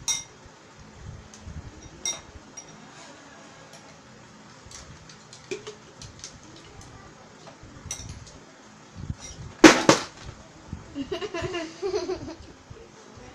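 Metal spoons clinking and scraping against bowls as two children eat, with scattered light clinks and two loud knocks close together about ten seconds in, followed by a child's brief voice.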